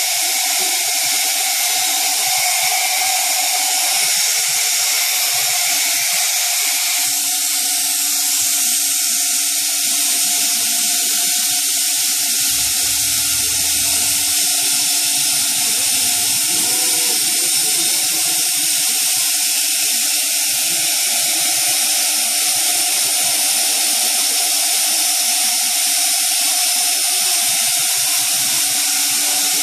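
Thermwood C67 five-axis CNC router running, its 7 HP spindle giving a steady high whine over a constant hiss. A brief low rumble comes about halfway through.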